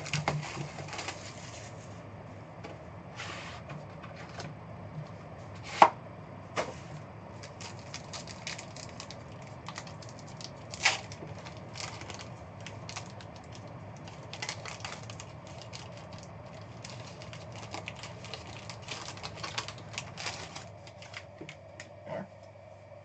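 A trading-card box and its packaging being opened and the cards handled: many small scattered clicks, taps and crinkles, with two sharper knocks about six and eleven seconds in.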